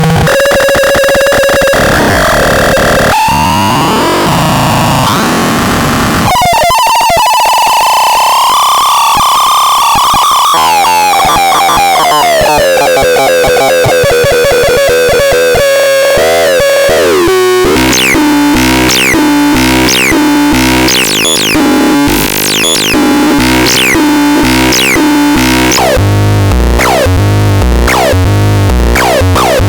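Loud, harsh electronic synthesizer sounds from the Baltarel Utra Max: buzzy held tones that wobble and glide slowly downward. From about halfway through come repeated quick falling sweeps, and near the end a pulsing low bass beat.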